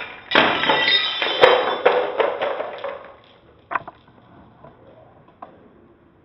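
A glass-fronted wooden photo frame falls onto a wooden floor and its glass pane shatters. Shards clink and scatter for about three seconds, then two last faint clinks come near the end.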